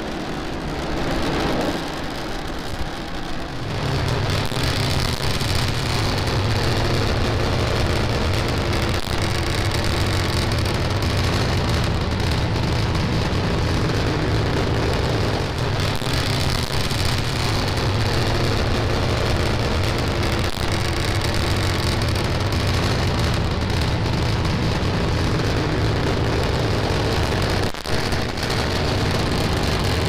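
Starship SN10's three Raptor engines during ascent: a steady crackling roar with a heavy low rumble that thickens about four seconds in, with a brief dip near the end.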